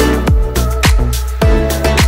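Background music: an upbeat electronic dance track with a steady kick-drum beat, about two beats a second, under held synth notes.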